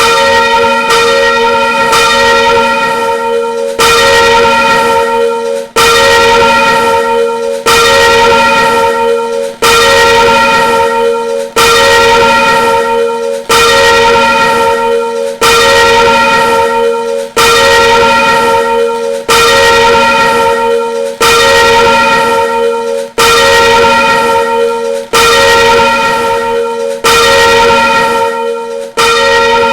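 A single swinging church bell ringing steadily. Its clapper strikes about once a second in alternating louder and softer strokes, and each stroke rings on into the next.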